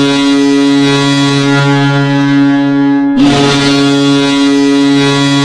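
Hockey goal horn blowing in two long, steady blasts: the first, already sounding, cuts off about three seconds in and the second starts straight after.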